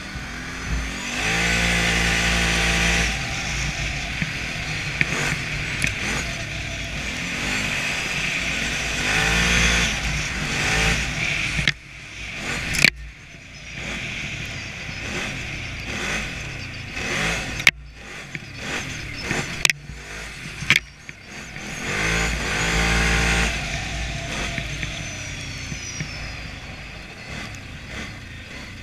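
ATV engine running under the rider along a trail, its pitch climbing under throttle about a second in and again about 22 seconds in. Several sharp knocks come in the middle stretch, the loudest about 13 seconds in.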